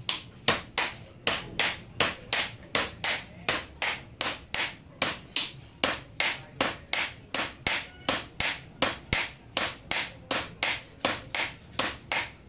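Two smiths hammering a red-hot steel blade on an anvil in turn, a hand hammer and a sledgehammer alternating, in a steady rhythm of about three ringing blows a second.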